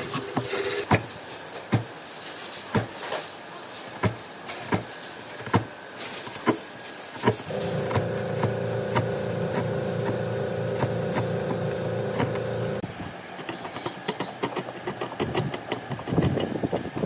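Workshop sounds: scattered sharp knocks and taps on wood, then a small electric tool motor runs steadily for about five seconds and stops, after which the knocking goes on.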